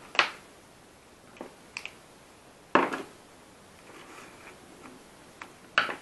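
A handful of short, sharp clicks and knocks as the parts of a hobby rotary tool and its flexible-shaft attachment are handled and fitted together. The loudest comes about three seconds in, with others near the start and the end.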